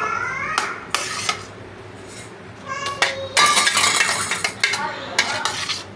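Metal spoon scraping and clinking against a steel plate while chickpea chaat is stirred, busiest in the middle. A few short high-pitched rising cries come through, at the start and again about three and five seconds in.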